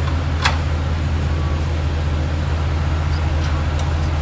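Chevrolet Camaro SS V8 idling with a steady low rumble through a cat-less exhaust with long-tube headers and no mufflers. A sharp click sounds about half a second in.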